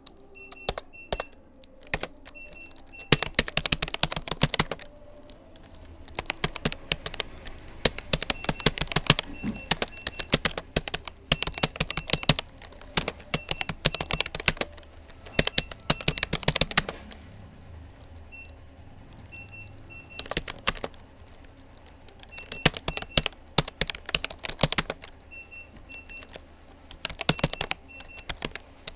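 Typing on a Rapoo computer keyboard: runs of quick key clicks lasting a few seconds each, broken by short pauses.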